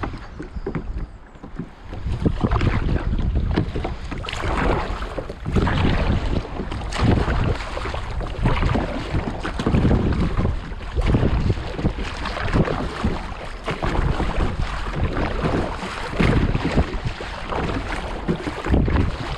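Water lapping and splashing around a sea kayak on gentle waves, with wind buffeting the microphone in irregular gusts.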